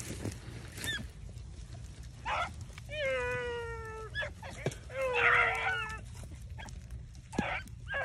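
Beagles baying on the track of a running swamp rabbit: a couple of short chop barks, then two long, drawn-out bawls about three and five seconds in.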